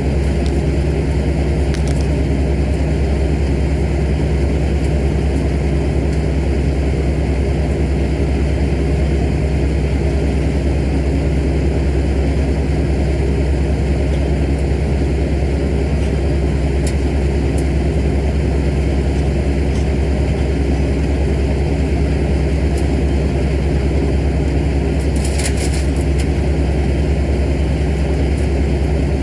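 A large engine running at a steady speed throughout, with a few faint ticks and a brief hiss about twenty-five seconds in.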